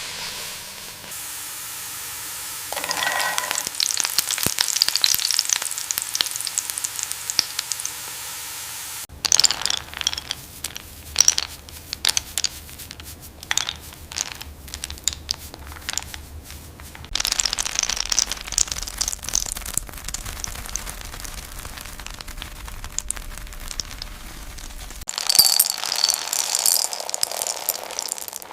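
Cashews sizzling and crackling as they are roasted and stirred, the sound changing abruptly every several seconds as one short shot gives way to the next.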